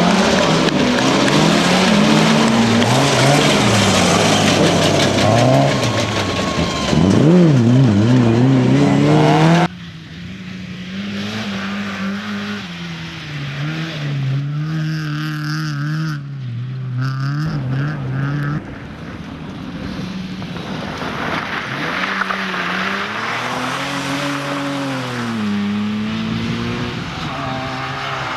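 Competition car engines revving hard, the pitch climbing and dropping again and again through gear changes. They are loud and close for about the first ten seconds, then cut suddenly to quieter, farther-off engine sound in a few short clips.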